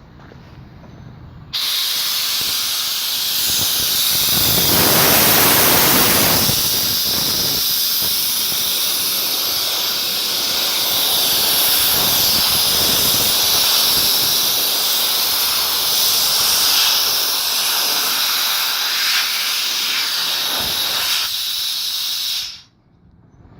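Compressed air venting from a 20 cfm Bauer high-pressure compressor in a loud, steady hiss that starts suddenly about a second and a half in and cuts off abruptly near the end. A few seconds in, it swells for about three seconds into a fuller, deeper rush.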